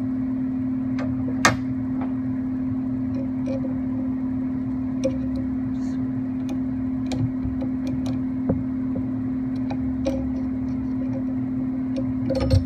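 A steady low hum runs throughout, with scattered small clicks and taps of metal parts and hand tools being handled on a mini lathe during gib adjustment.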